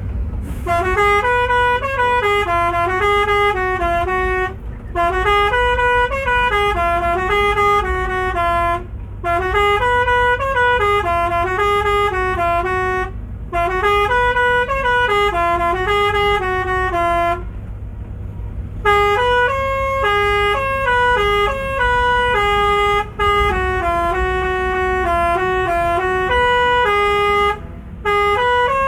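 Bus telolet horn, a multi-tone musical air horn, playing a repeating tune of short stepped notes in phrases of about four seconds, with brief breaks between them. A steady low rumble runs underneath.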